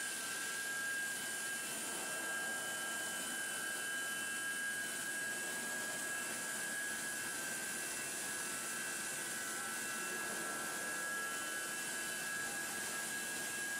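Steady machinery noise of a pipe-forming plant around a hydraulic JCO press: an even hiss with a steady high whine and no knocks.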